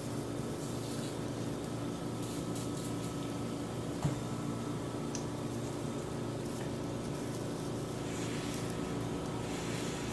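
Steady mechanical hum with the soft scrapes and taps of chopsticks on a metal grill pan, one sharper click about four seconds in.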